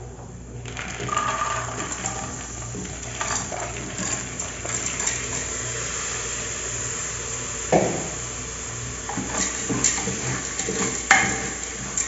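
A spoon stirring and knocking in a cooking pot where garlic is frying, over a steady background noise, with two sharper knocks, one past the middle and one near the end.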